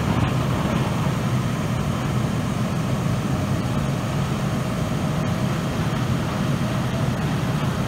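Fire engine's diesel engine running at a steady speed, a low, even hum that does not change.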